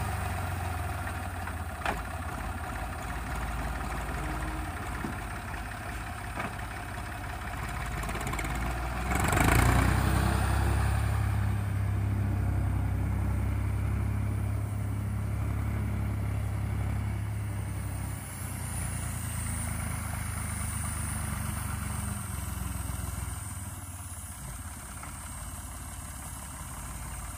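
Ursus C-360 3P tractor's three-cylinder Perkins diesel engine working under load as it pulls a six-furrow plough, a steady low drone. It swells briefly about nine seconds in and grows fainter near the end as the tractor draws away.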